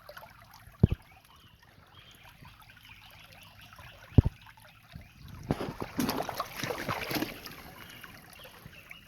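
Hands scraping and raking away wet sand and gravel in a burst of about two seconds past the middle, uncovering a buried arrowhead, over the steady trickle of creek water. Two dull thumps come earlier.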